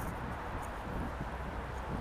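Steady outdoor street noise: an even hiss over a low rumble, picked up by a handheld phone microphone on the move.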